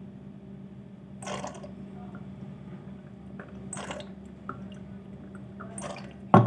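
Oil being poured into a glass in three short pours, each a brief liquid splash-and-drip, over a steady low hum.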